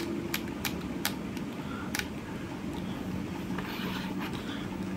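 Four light clicks in the first two seconds as the Nikon D5100's rear command dial is turned notch by notch, over a steady low hum. A soft rustle of handling follows later on.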